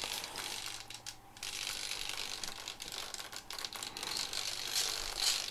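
Small 9 g servos in a foam RC warbird chattering and buzzing as the 6-axis gyro drives the control surfaces to self-level the plane while it is tilted by hand, with a short lull about a second in.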